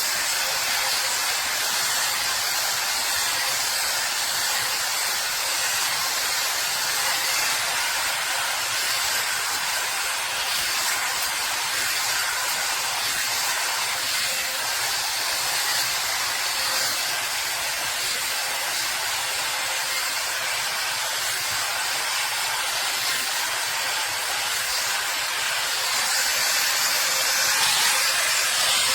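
Hair Trends Nano Titanium hot air brush running steadily on the hair: a continuous blowing hiss of air with a faint steady motor whine, a little louder near the end.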